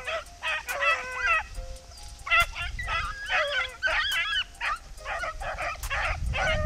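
A pack of rabbit hounds baying together in overlapping, rising and falling cries: the pack in full cry, running a swamp rabbit's trail.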